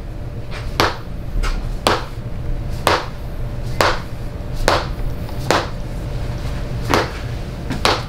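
A mallet striking a rod held against a person's back for a percussive chiropractic adjustment. About nine sharp knocks come at roughly one a second, one of them fainter.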